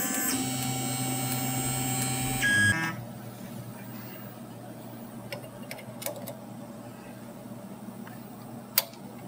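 Tormach PCNC 770 mill's axis drive whining steadily with several held tones as the boring head is jogged down, cutting off abruptly about three seconds in. After that, a few light clicks as the boring head is handled and adjusted with a hex key, the sharpest near the end.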